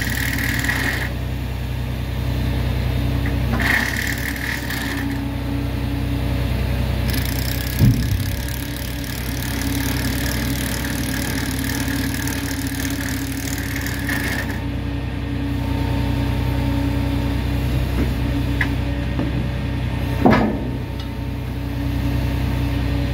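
A heavy work machine's engine running steadily, with a high whine that comes and goes. Two sharp knocks stand out, about a third of the way in and again near the end.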